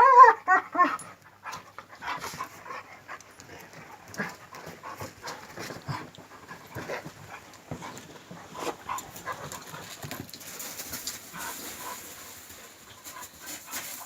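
Garafiano dog whining in high, wavering squeals during the first second, then panting quietly with scattered small clicks and rustles.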